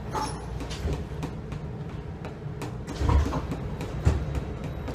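MARTA rail car heard from inside, its low rumble steady, with two short thumps about three and four seconds in.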